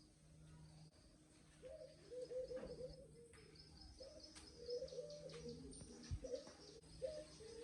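Faint cooing of a dove, in several short wavering phrases beginning a couple of seconds in, over a steady low hum.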